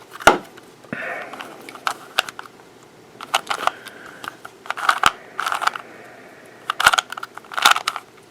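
3x3 Rubik's Cube being turned by hand: quick plastic clicks and rattles as the layers rotate, coming in irregular clusters with short pauses between them.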